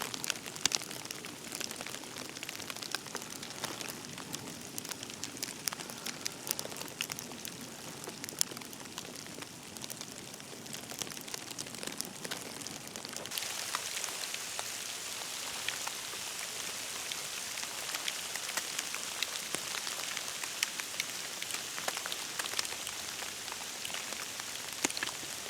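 Falling wet snow pattering steadily, much like rain on a surface, with many scattered small ticks. About halfway through the sound shifts to a brighter, higher hiss.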